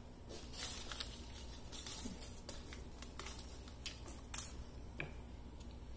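Wooden spoon stirring chicken pieces and whole spices in a pot of water: faint sloshing with scattered light clicks and knocks of the spoon against the pan.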